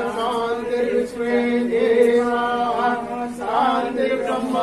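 A man chanting Vedic Sanskrit mantras, reciting on a steady, held pitch with only small shifts between phrases.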